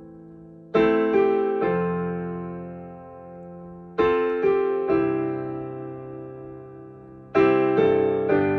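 Slow improvised piano: three rolled chords of three quick strikes each, about every three and a half seconds, each left to ring and die away.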